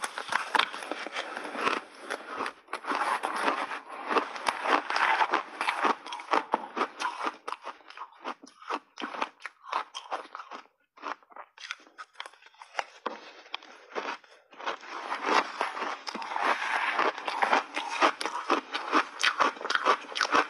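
Crunching and chewing of frozen purple block ice coated in milk powder, picked up close by a lapel microphone: dense crackling bites and chews, thinning out for a few seconds midway, then heavy crunching again.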